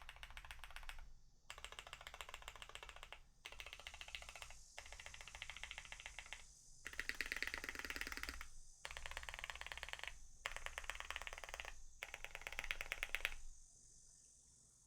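Fast typing on a Duck TC-V3 mechanical keyboard with retooled Cherry MX Black linear switches on a PET plate, under GMK keycaps: rapid keystrokes in runs of one to two seconds separated by short pauses, stopping about a second and a half before the end.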